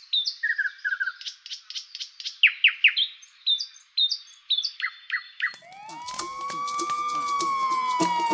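Quick, repeated bird chirps and tweets. About five and a half seconds in, a siren wail starts, rising and then slowly falling, over a rapid ticking rhythm.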